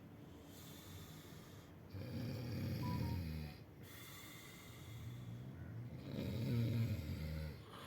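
Snoring: two long, low-pitched snores, the first starting about two seconds in and the second about five seconds in, with quieter breathing between.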